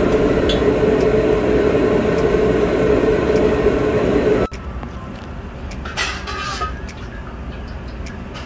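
Steady roar of a high-flame gas burner under a wok heating cooking oil to near smoking, with a hum running through it; it cuts off suddenly about four and a half seconds in. After that it is much quieter, with a brief metal scrape about six seconds in.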